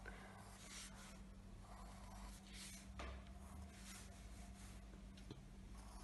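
Pencil lead faintly scratching on paper in a few short strokes, with a small tap about three seconds in.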